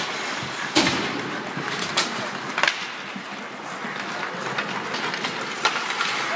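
Ice hockey play by the boards: a heavy thump against the boards about a second in, then several sharp clacks of sticks and puck over the steady scrape and hiss of skates on ice.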